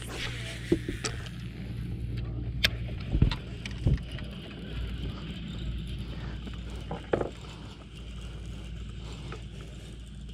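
Scattered clicks and knocks of gear being handled in a bass boat, over a steady low hum.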